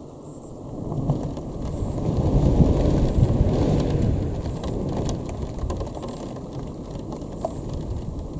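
Thunder rumbling: a low roll that swells about a second in, is loudest for a couple of seconds, then slowly fades.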